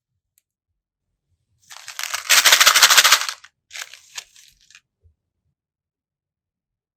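Slime being squeezed, crackling with rapid air-bubble pops in two bursts: a louder one about two seconds in and a shorter, fainter one just under four seconds in.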